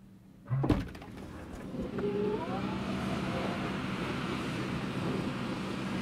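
A car's rear hatch unlatching with one sharp clunk and opening, with a brief rising whine about two seconds in. After the clunk a steady outdoor rush, like wind and air noise, comes in and holds.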